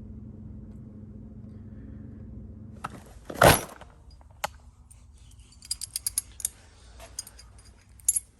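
A single loud thump about three and a half seconds in, then small metal lock parts clinking and rattling as they are handled, a quick run of light clicks near the end.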